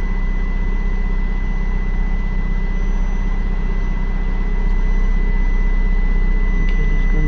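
Isuzu medium-duty truck's diesel engine idling, a steady low drone with a thin, even high tone over it.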